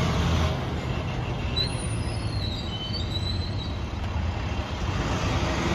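Full-size school bus engine running steadily with a low rumble as the bus moves across a parking lot.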